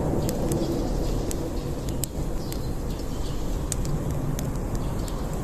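Wood campfire crackling: sharp, irregular pops and snaps from the burning wood over a steady low rush.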